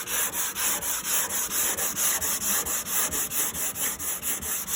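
Sandpaper, 220 grit, rubbed back and forth by hand over the primed steel of a car's front fender, in quick even strokes about four or five a second. It is block sanding through a black guide coat to show up low and high spots before sealing for paint.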